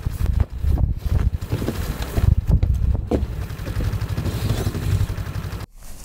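Strong storm wind gusting and buffeting the microphone, with a snowmobile engine running underneath. It cuts off abruptly near the end.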